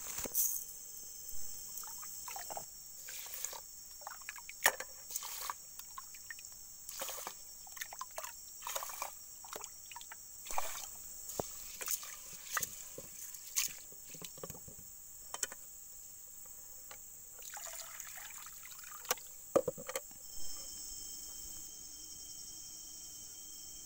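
Rice being washed by hand in a metal pot of stream water: irregular sloshing, splashing and clinks against the pot. A steady high drone of forest insects runs underneath.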